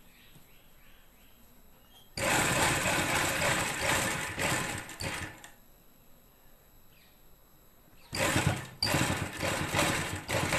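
Sewing machine stitching in runs: one run of about three seconds starting about two seconds in, then two shorter runs near the end, with the machine stopped in between. It is sewing a seam along piping on a shirt.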